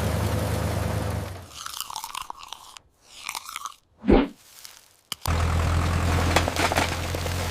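Tractor engine running with a steady low hum. It drops away for a few seconds of crunching and crackling with one loud short sound, then runs on again.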